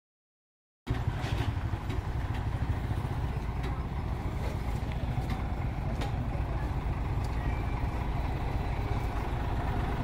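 Heavy diesel truck engine idling, a steady low rumble, with a few light clicks over it.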